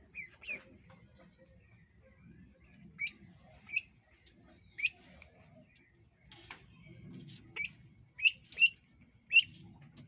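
White domestic ducklings peeping: about ten short, high peeps scattered irregularly, over faint low water sloshing in the tub.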